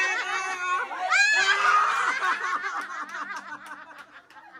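A group of people laughing, several voices at once, loudest about a second in and trailing off toward the end.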